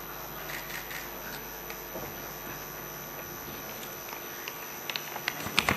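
Quiet room tone in a legislative chamber with a steady electrical hum on the broadcast feed. A few faint ticks run through it, and a cluster of louder sharp clicks comes near the end.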